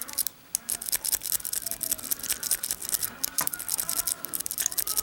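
A metal wave rake pick scraping and clicking rapidly and unevenly over the pin tumblers in the keyway of a Master Lock No. 37 padlock as it is raked, with a brief pause about half a second in.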